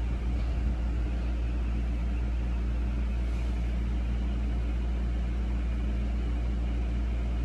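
A steady low mechanical hum with a constant drone, unchanging throughout.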